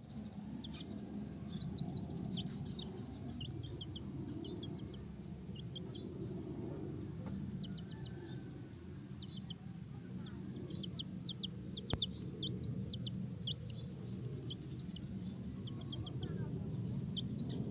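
Chickens clucking, with many short, high chirps scattered throughout over a steady low hum; a single sharp click about twelve seconds in.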